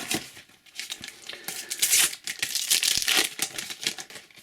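Foil sticker packet being torn open and crinkled in the hands, with a burst of loud crackling about two seconds in.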